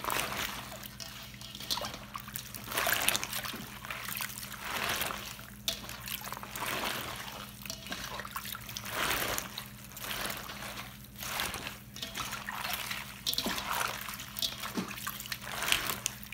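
Hands squeezing and kneading salt-wilted mustard greens in brine in a stainless steel bowl: water splashes and trickles back into the bowl in repeated bursts every second or two as the greens are wrung out for pickling.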